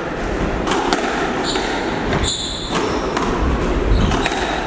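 Squash rally: the ball struck by rackets and hitting the court walls in sharp knocks about once a second, with short squeaks of shoes on the wooden floor.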